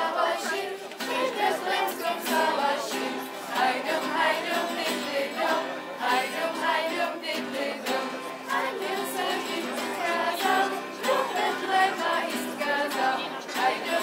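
A children's choir singing a carol together, accompanied by a strummed stringed instrument.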